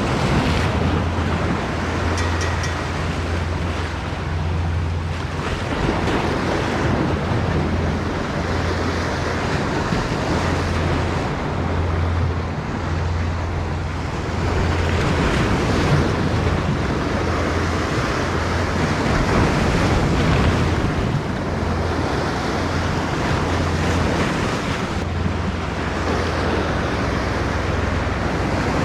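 Choppy sea surf washing in and out, swelling and easing every few seconds, with wind buffeting the microphone in a steady low rumble.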